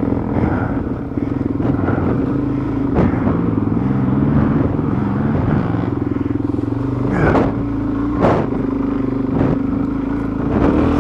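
Dual-sport motorcycle engine running at low trail speed, its pitch rising and falling with the throttle, with a few sharp knocks in the second half.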